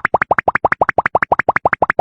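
Cartoon-style "bloop" sound effect: short plops that each rise in pitch, repeated quickly at about seven a second and cutting off abruptly at the end.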